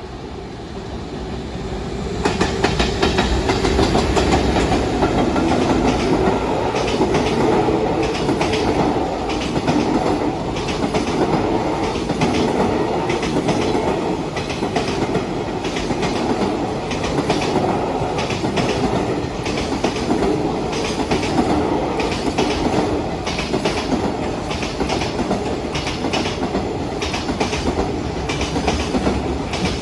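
Container freight train passing at speed, a long run of wagon wheels clicking over rail joints. The sound builds over the first two seconds, then stays loud and steady.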